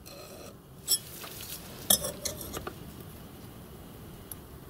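Steel scriber scratching a marking-out line across the face of a model steam locomotive cylinder block, drawn along an engineer's square, with two light metallic clicks about a second apart and a few fainter ticks.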